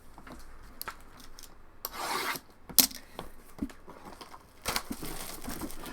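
Trading card box and packs being handled on a table: cardboard and pack wrappers rubbing and scraping, with a few sharp clicks and snaps.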